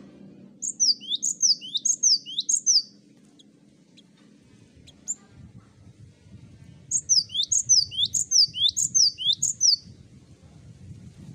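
Cinereous tit (gelatik batu) singing: a fast series of high, two-part whistled notes, each a falling sweep followed by a short rising hook, about three a second. It sings in two bouts, one near the start and one in the second half.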